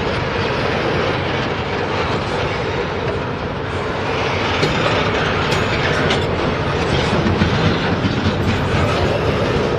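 Double-stack container freight train rolling past at close range: a steady rumble of steel wheels on rail. From about four seconds in, the sound grows a little louder, with short sharp clacks.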